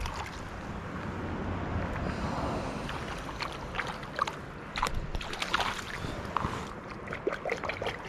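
Steady rush of river water with scattered short splashes and knocks through the middle, as a small brown trout is pulled in at the water's edge.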